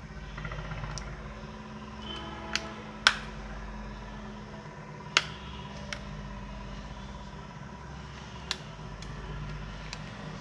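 Sharp plastic clicks as the clips of a Nokia phone's plastic housing are pried apart with a metal pick and fingers, five or so, the loudest about three seconds in. A steady low hum runs underneath.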